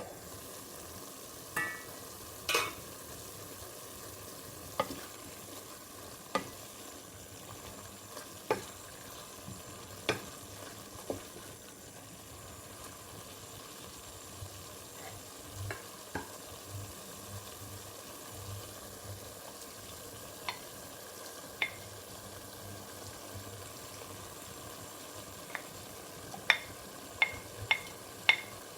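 Food sizzling as it fries in a pan while being stirred. A utensil clinks sharply against the pan every second or two, with a quicker run of clinks near the end.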